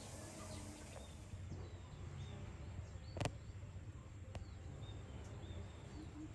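Oriental magpie-robin singing: a scattered series of short, high, arching whistled notes over a low steady rumble. A sharp click about three seconds in, and a fainter one a second later.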